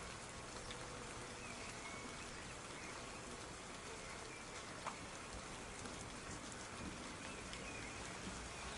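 Soft rain falling steadily, with scattered individual drops ticking and one sharper drop about five seconds in.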